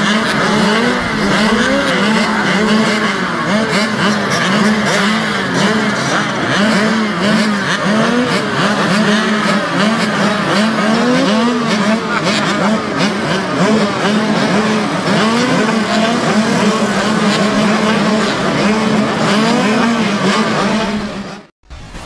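Several children's mini motocross bikes idling together at the start gate, their throttles blipped again and again so the engines rise and fall over a steady idle. The sound cuts off abruptly near the end.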